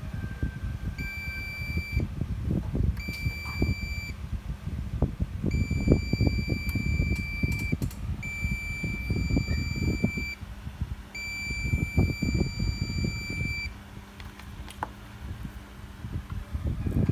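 Digital multimeter continuity beeper sounding five times, each a steady high beep of one to two and a half seconds, as the probes are held across an output power transistor's legs. A beep signals near-zero resistance: a shorted, dead transistor. Under it runs a steady low rumble with handling knocks.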